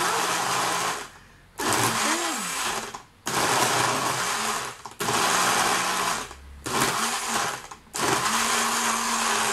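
Electrolux Sport personal blender pulsed on and off, its motor running in about six runs of a second or so with short pauses between, blending ice with bananas and milk.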